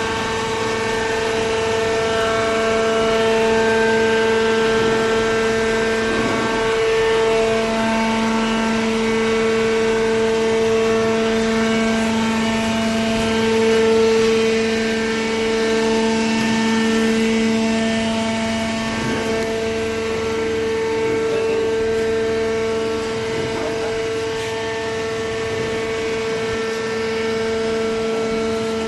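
Hydraulic power unit of a vertical cardboard baler running: the electric motor and pump give a steady, loud whine with a low hum underneath, its higher overtones shifting as the load changes.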